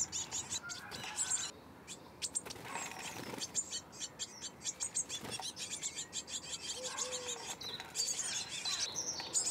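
Blue tits: rapid thin, high-pitched chirps in a steady stream, thickening near the end as an adult lands at the nest-box entrance hole.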